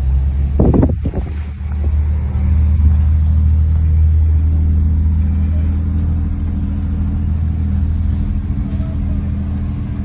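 A large engine running steadily with a low, even drone. A brief thump sounds just under a second in.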